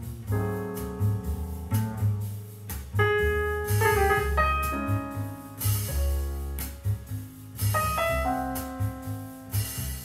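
Instrumental passage of a recorded song, piano over bass with drum hits, played back through a pair of customized Yamaha NS-1000 three-way loudspeakers.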